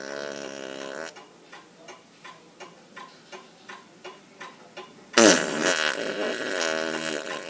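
A clock ticking steadily, about three ticks a second, then a loud, long fart sound effect that breaks in about five seconds in and runs for over two seconds, falling and wavering in pitch. A shorter wavering pitched sound fades out about a second in, before the ticking.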